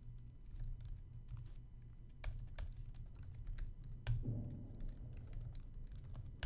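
Typing on a computer keyboard: irregular key clicks as a shell command is entered, with a louder keystroke about four seconds in.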